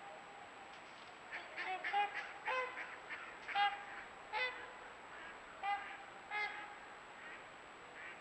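Geese honking in a string of short single calls, about nine of them at irregular intervals, over a faint steady hiss.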